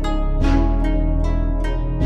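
Background music: plucked string notes, harp-like, in a steady pattern of about three notes a second over a held low bass.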